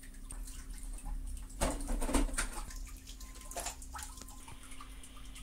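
Plastic handling noise as the palm rest is taken off a Mad Catz RAT 6+ gaming mouse. There is a scraping rustle about a second and a half in, the loudest part, and two shorter scrapes near the four-second mark, over a faint steady hum.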